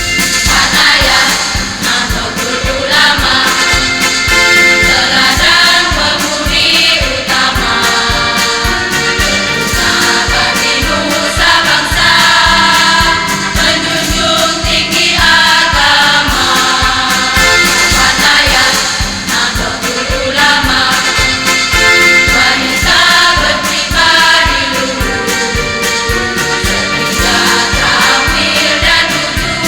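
Women's choir singing over instrumental accompaniment.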